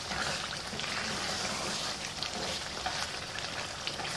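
Mutton karahi gravy sizzling in a wok while a wooden spatula stirs it, with small scrapes and clicks of the spatula against the pan over a steady hiss.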